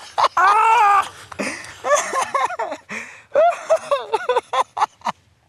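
A string of high, wavering voice-like cries and yelps, not words, with a few sharp clicks near the end.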